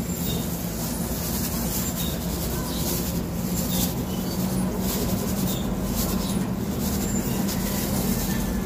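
Steady low mechanical hum over a steady background noise, with faint irregular clicks and rustles on top.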